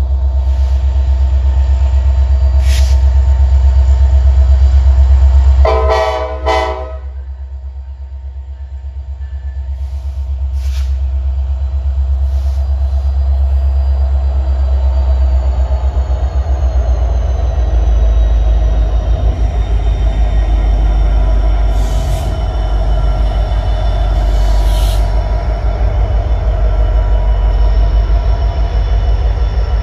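Diesel freight locomotives rumbling heavily, with one short horn blast of about a second roughly six seconds in. The rumble eases, then builds again, with a thin high squeal from the wheels and a couple of sharp clanks in the second half.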